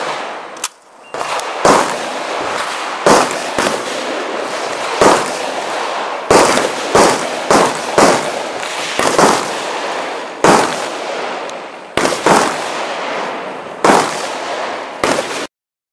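Rapid 12-gauge shotgun fire: about fifteen sharp shots at an uneven pace, often half a second apart, with short pauses, each ringing off the range walls.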